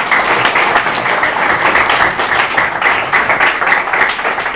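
A class of schoolchildren applauding, many hands clapping loudly together.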